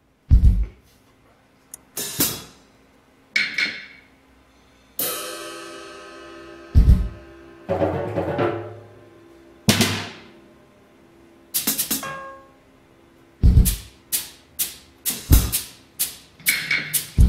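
MR-808 mechanical drum robot striking its miked acoustic drums and percussion. These are robot-played replicas of the TR-808 drum machine's sounds. It first plays single hits a second or two apart, with one long ringing hit about five seconds in, then from about thirteen seconds a quicker, steady rhythm.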